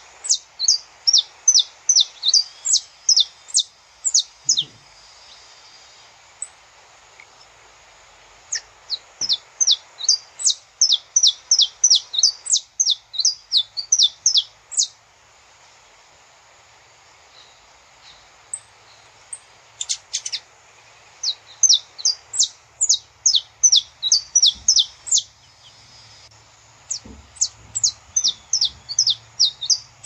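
Saffron finch singing: bouts of rapid, repeated high chirps, each sweeping down in pitch, about three a second, broken by pauses of a few seconds.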